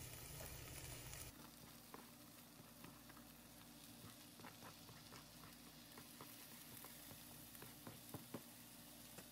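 Faint sizzling of a tomato-and-pepper mixture frying in a stainless steel pan while shredded chicken is scraped in with a spatula, with scattered light clicks and taps, a couple of sharper ones about eight seconds in.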